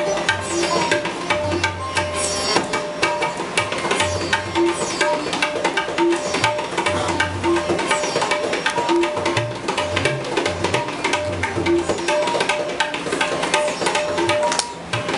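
Tabla and sitar playing together in Hindustani classical style: rapid, dense tabla strokes with short low bass notes from the bayan and pitched notes from the dayan, over the sitar's plucked, ringing strings.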